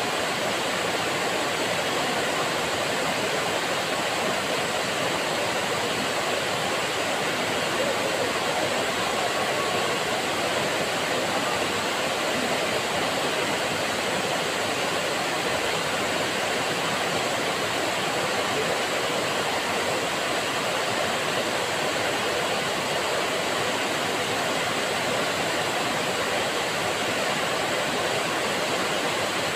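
Waterfall pouring onto rock and into its plunge pool: a steady, even rush of falling water.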